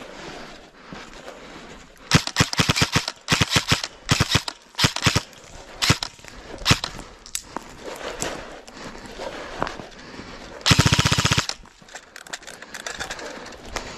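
Airsoft guns firing: several quick bursts and a few single shots in the first half, then one loud, rapid full-auto burst lasting under a second.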